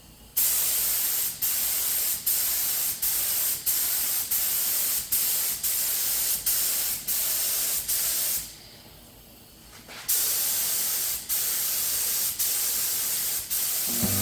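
Paint spray gun hissing as it sprays, in a run of passes with a brief dip about every three-quarters of a second; it stops for about a second and a half past the middle, then starts again.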